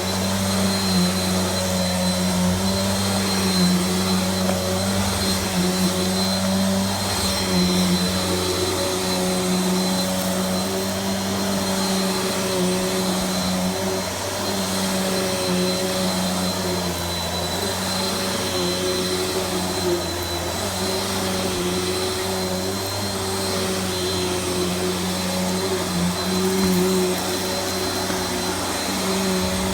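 Vacuum cleaner running steadily: a constant motor hum with a thin high whine above it, its pitch and level wavering slightly as it is worked over the floor.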